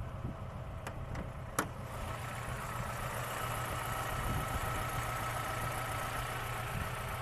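Car engine idling steadily, with a few sharp clicks about a second in; after about two seconds a steady high whine joins the running sound. This is the idle that the owner is checking for a puzzling knock and vibration.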